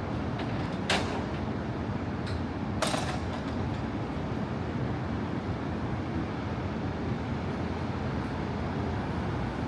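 Steady city street traffic rumble, with a sharp knock about a second in and a short clattering noise about three seconds in.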